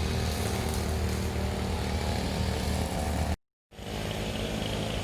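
An engine running steadily, cut off by a brief gap of silence about three and a half seconds in, then going on.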